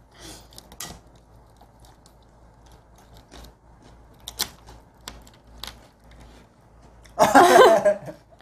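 Faint scraping of a small tool carving a heart shape out of a thin dalgona sugar-candy disc, with a sharper tick now and then. About seven seconds in comes a short, loud burst of voice.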